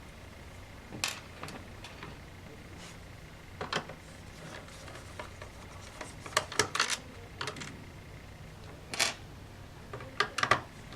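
Scattered small clicks and clinks of a Phillips screwdriver working on a laptop's internal screws, with tiny screws tapping on hard surfaces, some in quick clusters of two or three.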